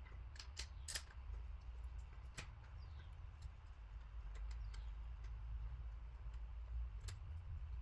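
A few faint, scattered sharp clicks and taps of hand tools on metal, over a low steady hum, with faint short falling chirps in the background.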